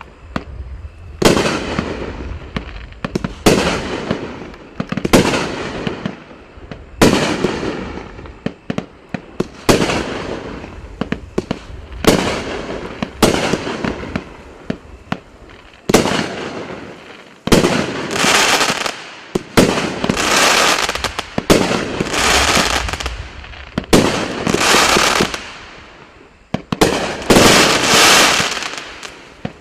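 500-gram consumer fireworks cake firing shot after shot, roughly one every one to two seconds. Each shot hits sharply and then dies away over about a second, with the shots coming thicker and louder over the last ten seconds.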